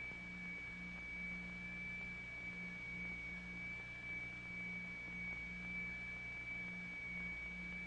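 Pure electronic test tones: a high tone held steady, with a faint low tone that throbs on and off about every half second. The throb is the beat between two closely tuned notes driving the vibrating medium.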